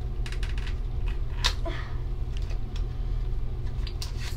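Small cardboard toy box being picked open by fingers: scattered sharp clicks and crinkles of card and paper packaging, over a steady low background hum.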